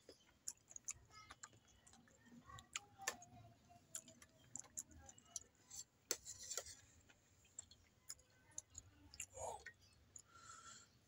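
Faint, irregular clicks of a metal spoon tapping and scraping a cup, with quiet chewing of soft, spongy pieces.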